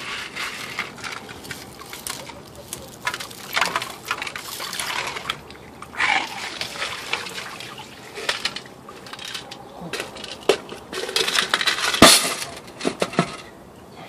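Water sloshing and splashing in a tin can as a hand stirs it, with small copper shot pieces clinking against the can's metal sides; water pours out, and near the end the copper shot spills onto a concrete paver with a sharp clatter.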